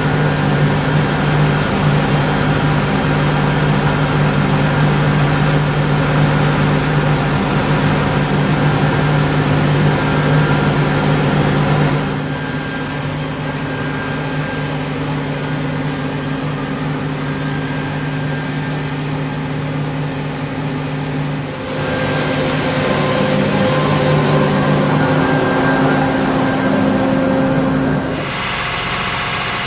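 John Deere 9996 cotton picker running, its engine and fans a steady loud drone with several hum tones. The sound changes abruptly about twelve seconds in, again a little past twenty seconds, and near the end, each time to a different mix of the same machine noise.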